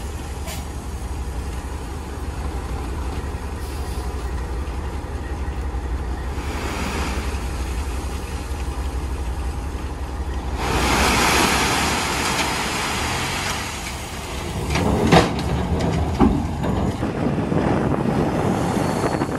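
Semi-truck diesel engine running steadily with its end-dump trailer tipped up over a gravel pile. About ten seconds in a loud hissing rush takes over for a few seconds, followed by two sharp clanks.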